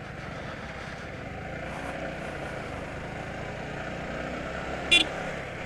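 Yamaha sport motorcycle engine running steadily while riding, with road and wind noise. A short high-pitched chirp sounds about five seconds in.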